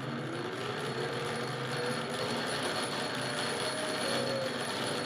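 Homemade hand-cranked tonewheel organ being cranked: a steady mechanical whir from the crank and gears, with a faint tone from the tonewheel that rises in pitch over the first two seconds and then holds, quieter than the machine noise.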